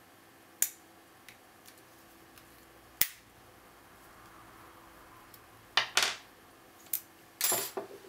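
Sharp metallic clicks and clatter from handling a brass Abus 65/40 padlock and its lock-picking tools: two sharp clicks in the first three seconds, then a cluster of metal knocks near the end as the padlock and a small metal part are set down on a wooden table.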